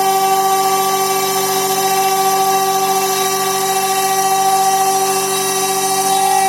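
A small electric motor running at a steady speed with a constant whine.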